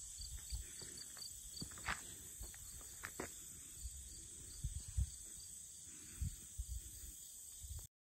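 Insects, crickets by their sound, chirping in a steady high trill with regular short chirps over it, joined by occasional low thumps and rumble. The sound cuts off suddenly near the end.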